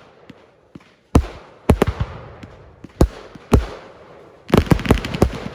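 Fireworks going off: five sharp bangs, each with an echoing tail, followed near the end by a quick run of crackling bangs.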